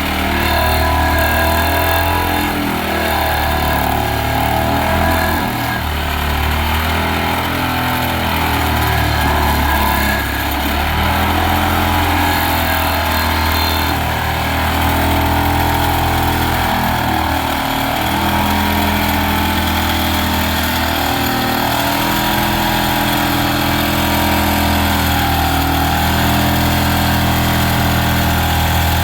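Excavator-mounted side-grip vibratory pile driver at work: the excavator's engine and the hydraulic vibro hammer run continuously, a loud low hum whose tones shift in steps.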